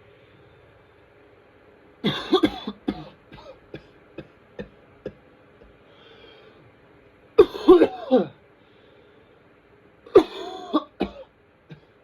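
A person coughing in three fits, about two, seven and ten seconds in. Each fit is a quick run of coughs with a pitched, wavering sound running through it, taken for whooping cough.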